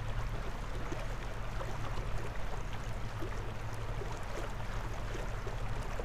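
Narrowboat's engine running steadily while cruising, a low hum, under a continuous rush and lap of water along the hull.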